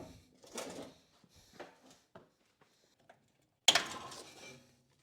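Short knocks and rattles of tools and parts being handled on a truck under teardown, with one louder clatter about three and a half seconds in that dies away over about a second.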